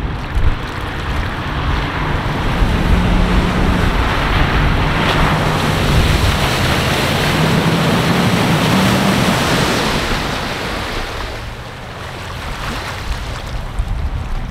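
An off-road 4x4's engine working hard under load, its pitch climbing slightly, under a loud rushing noise. The rush eases off about two-thirds of the way through.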